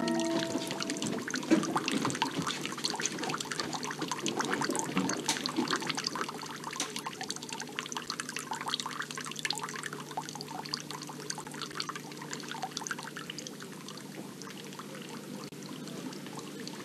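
Water running from a bamboo spout into a stone garden basin, splashing and trickling steadily, gradually getting softer.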